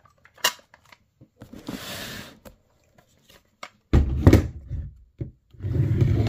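Stock of an ASG Dragunov SVD-S airsoft rifle being unlatched and folded against the side of the gun: a couple of sharp latch clicks, a soft scraping rub as it swings, then louder knocks and clicks about four seconds in as it locks into place, with handling rumble near the end.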